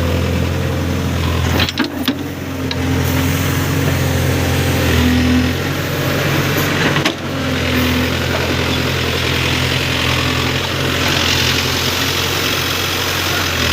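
Heavy diesel engine running steadily, with slight rises and falls in engine load and a few sharp knocks, about two seconds in and again around seven seconds.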